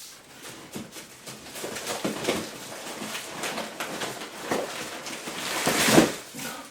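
Packaging being handled: rustling and crinkling with many small clicks, loudest about six seconds in.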